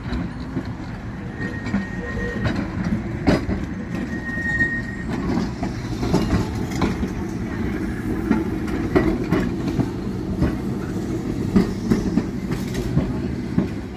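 Brisbane drop-centre electric tram 341 running past on its track: a steady low rumble of wheels and running gear, with irregular knocks as the wheels pass over rail joints. A thin, high squeal sounds briefly twice in the first few seconds.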